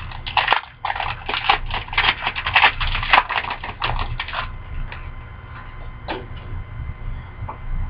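A hockey card pack's wrapper being torn open and crinkled, a dense crackling rustle that stops about four and a half seconds in, followed by a few faint rustles and taps.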